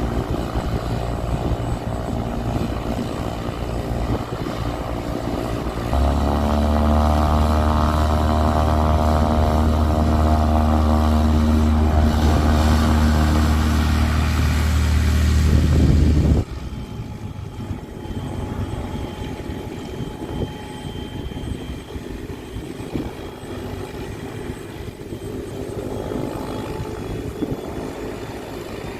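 Aircraft engines running: a Cirrus SR22's propeller engine and a Robinson R66 helicopter's turbine. A steady engine sound rises in pitch and grows louder about six seconds in, holds steady, then drops off abruptly about sixteen seconds in to a quieter steady running sound.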